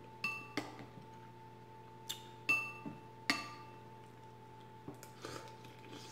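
Spoon clinking against a ceramic soup bowl about five times in the first three and a half seconds, each strike ringing briefly, then softer sounds of the chowder being eaten from the spoon near the end.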